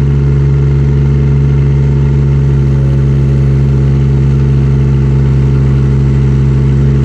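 Kubota D722 three-cylinder diesel of a 1.2-ton mini excavator running steadily while the hydraulics pull the boom up against an anchored crane scale in a lift test.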